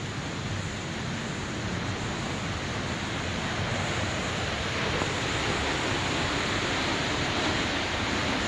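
Rushing water of a waterfall: a steady, even wash of noise that grows a little louder about halfway through.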